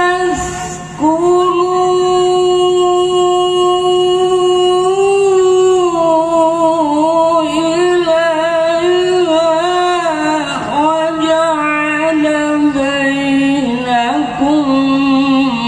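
An elderly man's voice in melodic Quran recitation (tilawah) into a hand-held microphone. He draws out long, steadily held notes, then from about six seconds in winds them into wavering, ornamented runs, with a short breath about a second in.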